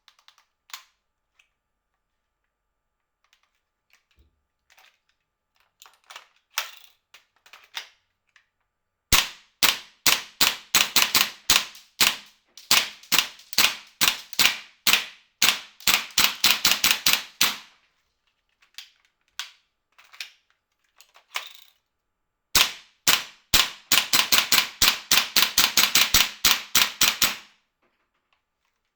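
Army Armament R60 gas blowback airsoft rifle firing: a few faint clicks first, then sharp cracks that start as spaced single shots and quicken into fast strings. After a pause of about five seconds comes a second string that runs into a rapid burst lasting about five seconds.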